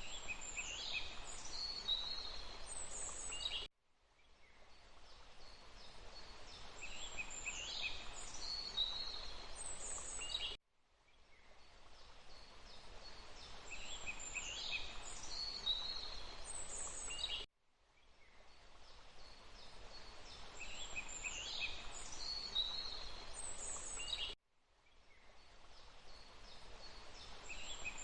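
Songbird chirps and whistles over a steady rush of running water. It is a short recording on a loop: the sound cuts out about every seven seconds, four times here, and each time fades back in and repeats the same bird phrases.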